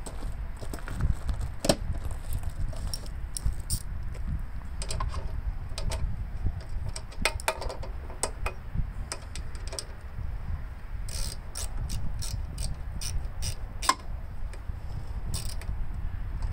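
Clicks and light metal clinks of hand tools and parts being worked on a lawn mower engine during reassembly, with a quick run of ratcheting clicks about two-thirds of the way through. A steady low rumble runs underneath.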